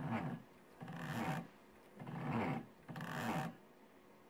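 Stepper motors salvaged from DVD drives moving a CNC pen plotter's axes in short moves, each a buzzing whine that steps up and down in pitch as the speed changes. Four moves, with brief pauses between them.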